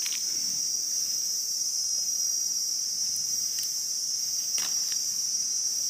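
Steady high-pitched trilling of an insect chorus in forest, unbroken throughout. A couple of faint short rustles from leaf litter and mushroom handling, one near the start and one a little over four seconds in.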